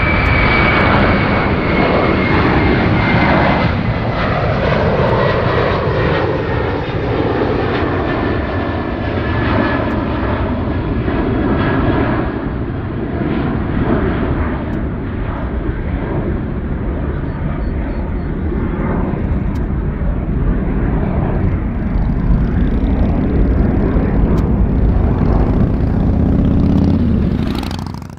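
Airbus A330-200 jet engines at climb power after takeoff: a loud, steady roar with a thin high whine that slowly falls in pitch over the first dozen seconds.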